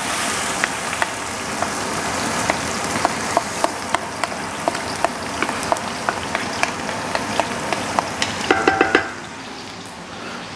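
Diced onions frying in hot peanut oil in a stainless-steel stockpot: a steady sizzle full of crackles and pops, just after the onions go in. A short run of ringing knocks comes near the end, and the sizzle is quieter over the last second or so.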